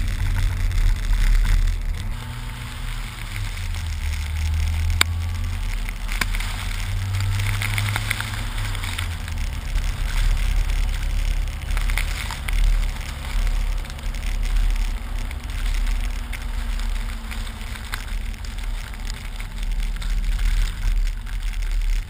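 Jeep Wrangler engine running as it drives on a snowy road, its note stepping up and down a few times, heard from a camera mounted outside the Jeep under a steady rush of wind and blowing snow, with a few sharp ticks.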